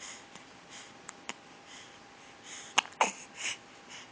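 A young child hiccuping: one sharp hiccup with a short downward-falling voiced catch about three seconds in, with soft breaths around it.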